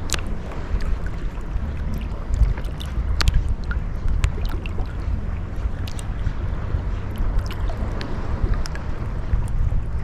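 Gentle Caribbean sea waves lapping and washing on the beach, a steady low wash with scattered small splashes and fizzing clicks. A heavy low rumble runs underneath, like wind on the microphone.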